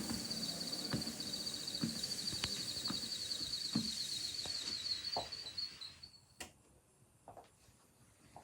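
UREVO SpaceWalk 3S walking pad running with a high, warbling whine that cuts off about six seconds in, and short squeaks or knocks repeating about every 0.7 s. This is the squeaking in use that the owner is recording as a fault.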